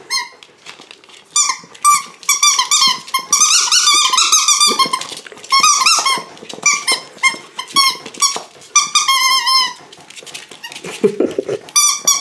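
Squeaky dog toy squeaking over and over as a pug x Jack Russell puppy bites and chews it, in quick runs of short high squeaks with brief pauses between.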